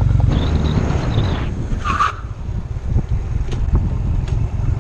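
Honda Rebel motorcycle making a hard emergency stop: a rush of noise for about a second, then a brief tyre squeal about two seconds in, with the engine rumbling low as the bike comes to rest.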